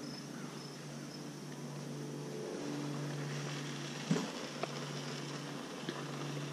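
A slow-moving vehicle's engine running with a steady low hum, with a couple of light knocks about four seconds in. Faint, evenly repeated insect chirps sound near the start.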